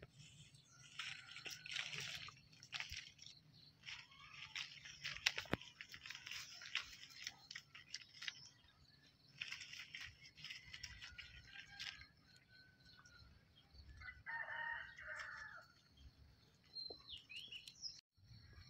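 Leaves and branches rustle in three bursts as a small monkey moves through a pomelo tree. Late on, a rooster crows once for over a second, and a few short bird chirps follow.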